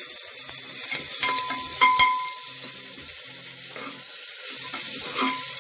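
Onions and ginger-garlic paste sizzling in hot oil in a metal pressure cooker while being stirred. A spoon strikes the pot a few times about a second and a half in, with short metallic rings.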